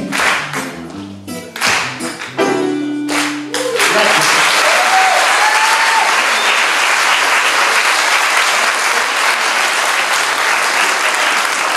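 The last notes of a song on grand piano and guitar, closing on a held chord; then, about four seconds in, an audience bursts into steady applause.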